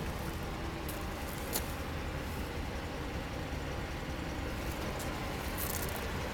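Steady low outdoor background rumble, with a few faint short clicks.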